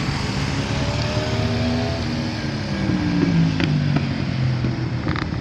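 Sport motorcycle engine heard from trackside as a bike rides through a corner on a race circuit. The engine note rises over the first two seconds as it accelerates, then falls away from about three seconds in as the bike moves off, over a steady low rumble.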